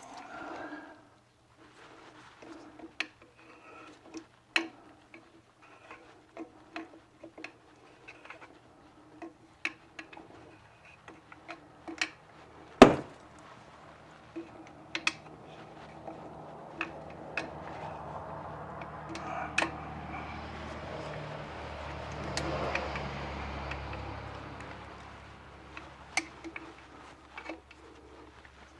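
Scattered small metallic clicks and taps of hand work, a part being screwed in and tightened on an electric motor, with one sharp knock about thirteen seconds in. A broad rumble swells in the background during the second half and fades again.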